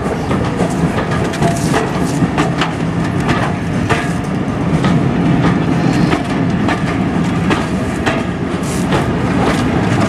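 Passenger coaches of a heritage railway train rolling past close by: a steady low rumble from the running gear with repeated sharp clicks of the wheels passing over the rail joints.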